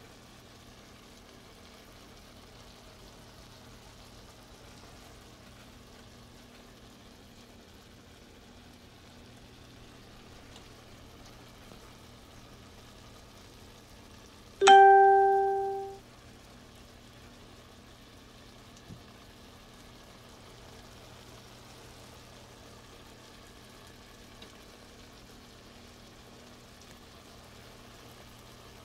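Garlic scapes simmering in sauce in a wok, a faint steady sizzle with a low hum underneath. About halfway through, a single loud ding rings out and fades within about a second.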